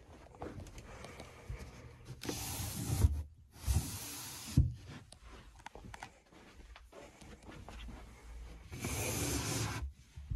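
Rustling handling noise as someone moves about a small room and handles storage lids, with three dull thumps about three to four and a half seconds in, and more rustling near the end.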